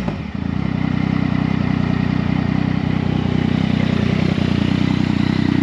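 A 2016 Yamaha XSR900's inline three-cylinder engine dropping back from a rev right at the start, then idling steadily.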